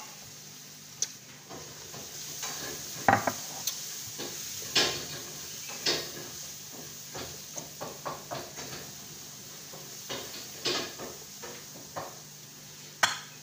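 A spoon clinking and scraping on a ceramic plate as food is scooped up, in a dozen or so short, separate taps and scrapes, with the sharpest about 3, 5, 6, 11 and 13 seconds in, over a faint steady hum.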